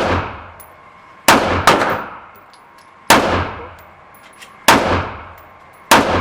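Five gunshots fired at an indoor shooting range at an uneven pace, two in quick succession about a second in, then one roughly every one and a half seconds, each followed by a short echoing decay.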